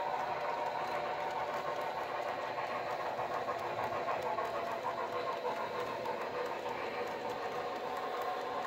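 HO-scale model freight train running steadily on the track, pulled by a sound-equipped Broadway Limited Paragon locomotive.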